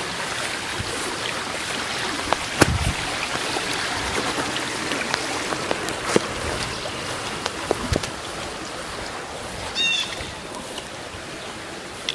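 Steady rushing of a flooded creek, an even hiss of moving water, with scattered short clicks over it. A brief high chirp sounds about ten seconds in.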